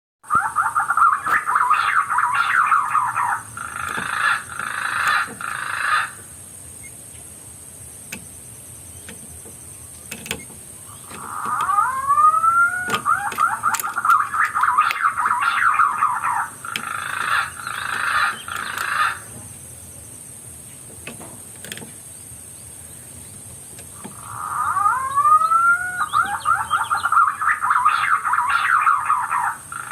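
An unidentified bird calling in three loud bouts, each opening with a couple of rising, upslurred notes, then a fast chattering run and a few spaced notes, with quiet gaps of several seconds between bouts. A steady faint high whine runs underneath.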